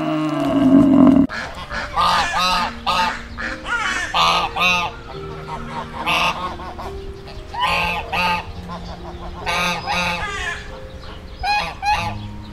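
A deep bellow from an African buffalo for about the first second, then mallard ducks quacking in repeated runs of loud calls.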